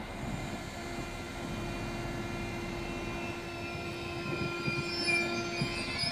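Electric whine from a Velaro D (DB class 407) ICE high-speed train's traction equipment as it moves slowly along the platform. It is several steady tones over a low rumble, growing louder toward the end, with some high tones rising.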